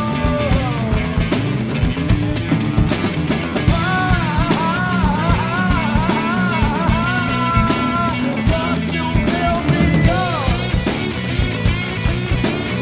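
Rock music with a busy drum kit and bass. A held lead note slides down just after the start, and a bending, wavering lead line plays from about four to eight seconds in.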